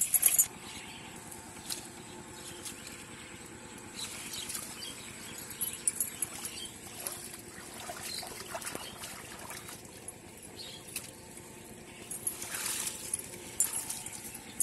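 Light splashing in shallow pond water and rustling of water-hyacinth leaves as a man works his hands in the water and moves through the plants, in scattered short bursts over a faint steady background.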